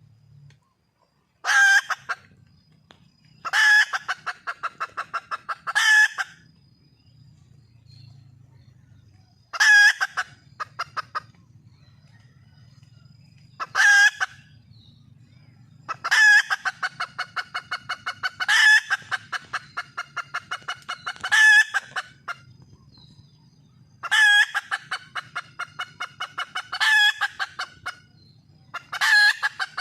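Wild junglefowl hen calling for a mate: a loud call repeated every two to three seconds, most calls trailing into a fast run of short clucks.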